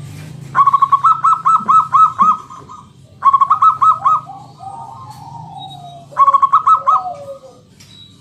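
Zebra dove (perkutut) singing its cooing song in three bursts of quick repeated notes, the first about two seconds long and the others shorter. Fainter, lower sliding calls come in the gaps, over a steady low hum.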